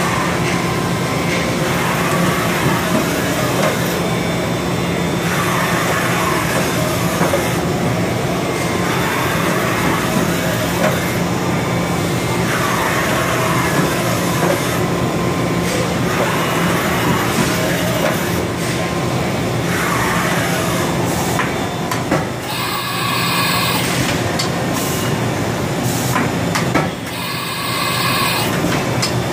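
Haas VF-2SS CNC vertical machining center running: its axis servos whine up and down every few seconds as the table makes rapid traverses, over a steady machine hum. Near the end, the side-mount tool changer's arm swings to change a tool.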